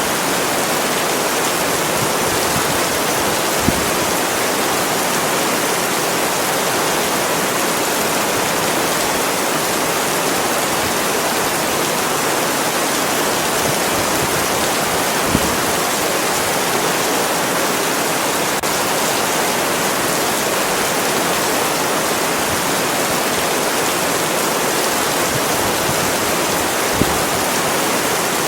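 Steady, continuous rain making an even hiss with no let-up, broken only by three brief taps spread through it.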